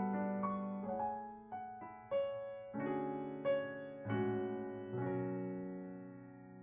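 Background piano music: a slow melody of single struck notes over held chords, ending on a chord about five seconds in that slowly fades out.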